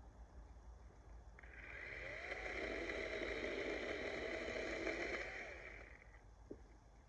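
DeWalt 20V battery chainsaw running through a cut while limbing a felled tree: a whine starts about a second in, rises in pitch as the chain spins up, holds steady for about three seconds, then winds down near the end.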